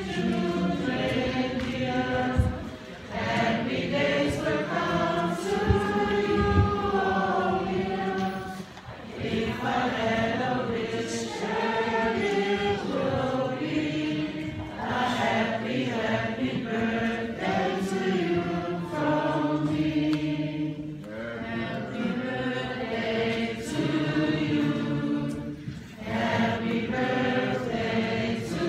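A group of voices singing together in harmony, in held phrases of several seconds with short pauses between them.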